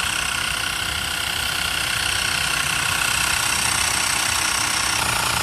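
Xiaomi Mi Portable Electric Air Compressor running steadily, its small piston pump buzzing with a steady whine as it inflates a mountain bike tyre toward a preset 45 psi.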